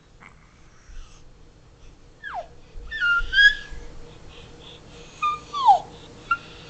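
Four short, high-pitched squeaky vocal calls, most of them sliding down in pitch, with a faint steady hum underneath.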